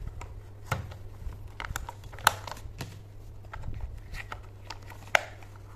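Small plastic clicks and knocks as AA batteries are seated in a plastic toy train's battery compartment and its cover is fitted. Two sharper clicks stand out, about two seconds in and near the end.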